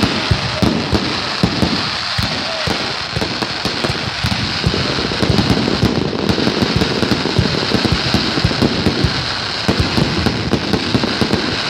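Fireworks display going off overhead: a dense, continuous rattle of bangs and crackling with no break.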